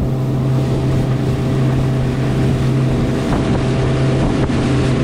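Motorboat engine running steadily at speed with a constant low hum, with spray rushing off the hull and wind on the microphone.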